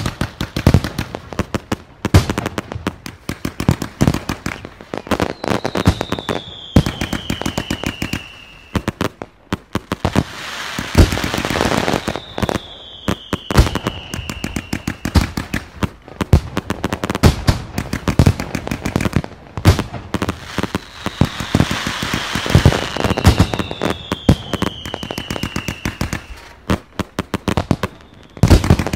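A ground-fired multi-shot consumer firework barrage going off without pause: a rapid string of launch thumps and sharp bangs of bursting shells, with crackling between them. Several long whistles fall slowly in pitch, each lasting a few seconds.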